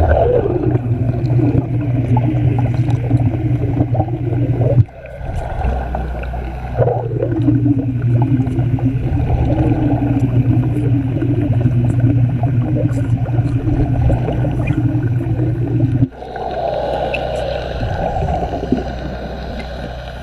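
Underwater wet welding: the arc gives a steady buzzing hum under crackling and gurgling bubbles. It cuts off about five seconds in, restarts a couple of seconds later, and changes near the end.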